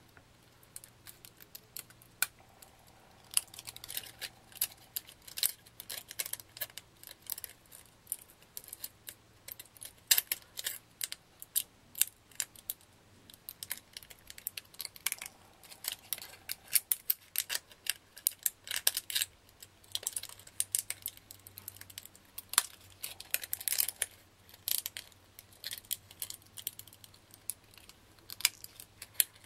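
Small scissors snipping the edges of a thin plastic water bottle, cut into petals, to round off the corners: many short, irregular snips with brief pauses between them.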